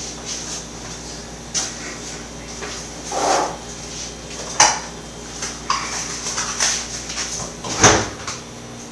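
Kitchen clatter: irregular knocks and clinks of dishes and utensils being handled, with a louder thump about eight seconds in.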